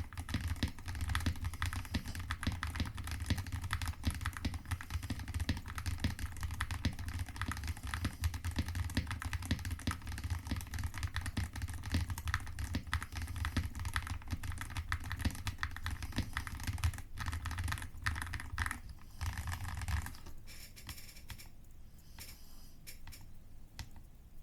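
Custom Artnix GK75 mechanical keyboard with Leobog Ash Wood V3 switches and Cherry-profile keycaps, typed on quickly and continuously. A little before the end the typing thins to scattered, quieter keystrokes.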